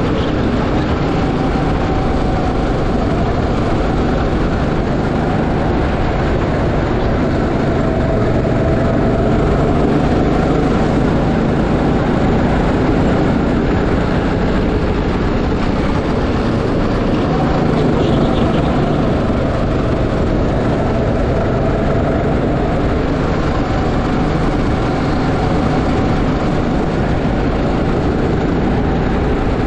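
Go-kart engine running under way, loud and steady, its pitch drifting a little up and down as the kart goes through the corners.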